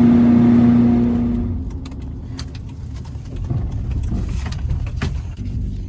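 A car running: a steady pitched hum for about the first second and a half, then a low rumble with scattered clicks and knocks.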